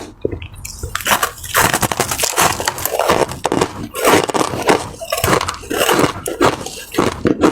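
Ice being bitten and chewed, a continuous run of sharp, crackly crunches.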